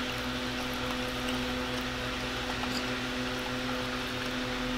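A steady low hum, one even tone with its overtone over a faint hiss, with a few faint small clicks.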